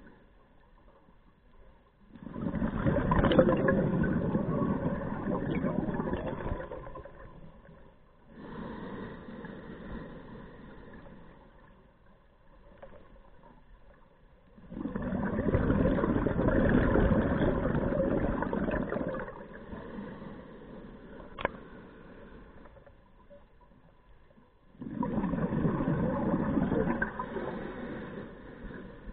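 Scuba diver breathing through a regulator: three long, loud rushes of exhaled bubbles about ten seconds apart, with quieter inhalations between them.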